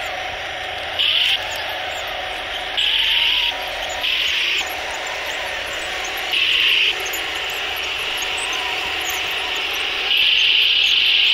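Torro 1/16-scale RC Sturmtiger model tank running: a steady engine drone from its sound unit, broken five times by short, louder bursts of high whine as it is driven, the longest about two seconds near the end.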